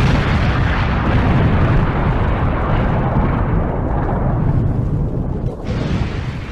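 Explosion sound effect: a long, rumbling blast that holds for several seconds, then slowly dies away near the end.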